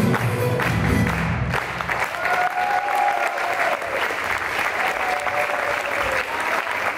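Estonian folk-dance music on lõõtspill button accordions ends about a second and a half in, and the audience applauds.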